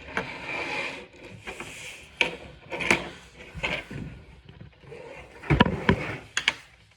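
Handling noise: irregular wooden knocks and rubbing as parts are moved about, with a cluster of louder, sharper knocks about five and a half to six and a half seconds in.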